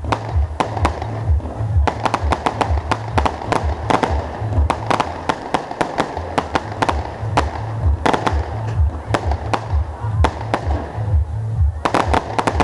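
Fireworks display: many sharp bangs and cracks from bursting shells, packed densely from about two to five seconds in and again near the end. Music with a heavy pulsing bass beat plays under them.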